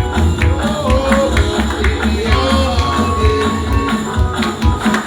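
Live church gospel music with a strong bass beat and a shaken tambourine, a gliding melody line held over it.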